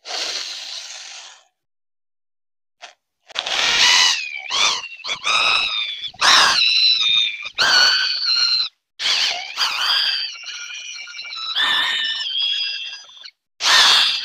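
Wooden stick being forced and turned through a sharpened Dynabolt anchor washer used as a dowel cutter, the wood rubbing on the metal edge in a run of high squeals with wavering pitch that stop and start, each lasting up to about two seconds. A brief rasping hiss comes at the start, and a loud squeal near the end.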